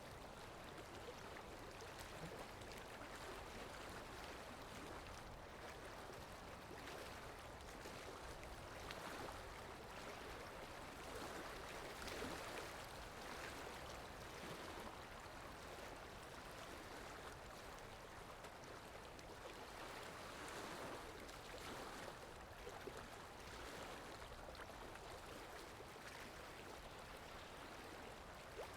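Faint sea water washing and splashing, swelling and easing every second or two.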